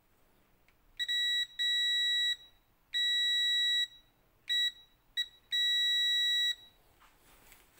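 Digital multimeter's continuity buzzer beeping six times at an uneven pace, from short blips to about a second long, as its probes are held on the wiring connectors of a jet ski CDI unit. Each beep marks an unbroken circuit between the probes.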